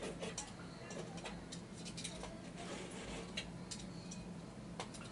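Faint, irregularly spaced small clicks and ticks over low room hum.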